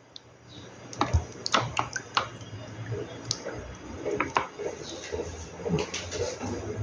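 Scattered light clicks and soft crinkles of a plastic bag being handled on a tabletop.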